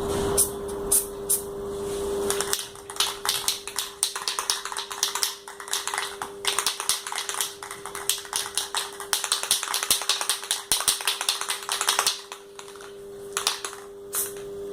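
Quick, repeated brush strokes and dabs of paint on the split air conditioner's blower turbine, coating the small counterweight plates glued on to balance it. The strokes come thicker and faster from a couple of seconds in, over a faint steady hum.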